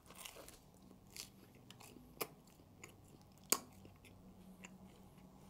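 Biting into and chewing a baked Hawaiian pizza: quiet mouth and crust sounds, with two sharp crisp clicks about two and three and a half seconds in.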